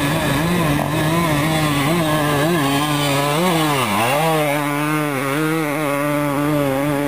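Suzuki RM 250 two-stroke dirt bike engine held high in the revs climbing a steep dirt hill, its note wavering with the throttle; the pitch dips and recovers about four seconds in as the bike passes close.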